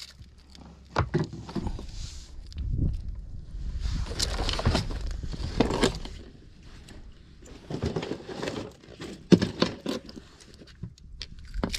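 Scattered knocks, clatter and rustling of handling aboard a small outrigger fishing boat, with a rushing noise of wind or water for a couple of seconds near the middle.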